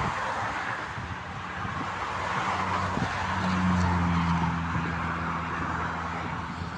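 A motor vehicle passing on a motorway: tyre and road noise swells to a peak about four seconds in and then fades away, with a low engine drone strongest as it goes by.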